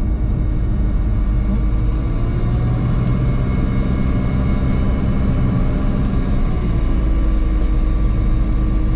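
Diamond DA40's single piston engine and propeller running at low taxi power, heard from inside the cockpit as a steady drone. The engine note lifts a little about seven seconds in.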